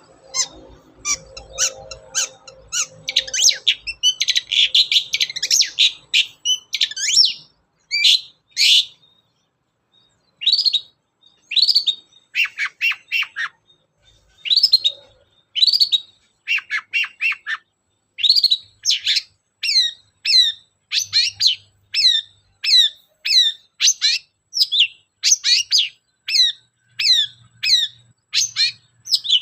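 Long-tailed shrike (cendet) singing: a fast jumble of chattering notes for the first several seconds, then, after a short pause, a steady run of short falling notes repeated about one and a half times a second.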